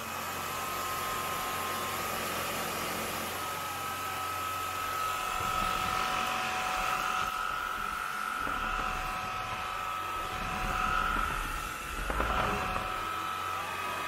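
Kyvol V20 cordless stick vacuum running on a hardwood floor, a steady motor whine over a rush of airflow. The pitch shifts a couple of times as the suction speed is switched between settings.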